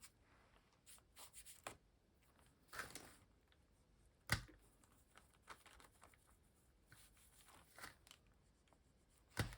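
Faint rustling and handling of paper and art materials on a work table, with two sharp taps, one about four seconds in and one near the end.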